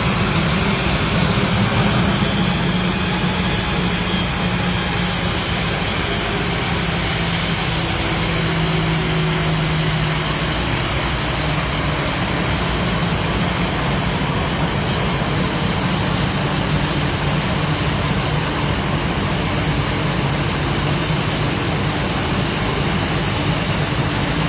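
Steady, loud engine noise with a low hum under an even rushing hiss, unchanging throughout, as from aircraft or vehicle engines running amid heavy water spray.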